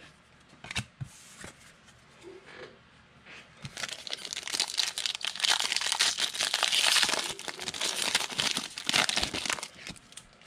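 Plastic wrapper of a pack of trading cards being torn open and crinkled: a few light clicks at first, then dense crackling for about six seconds.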